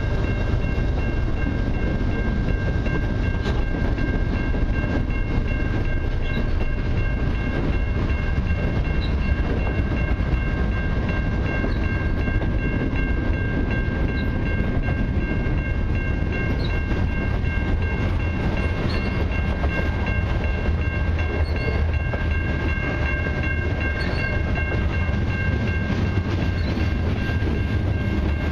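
Freight train cars rolling past at a level crossing: a steady heavy rumble of steel wheels on rail, with a steady high-pitched tone running over it throughout.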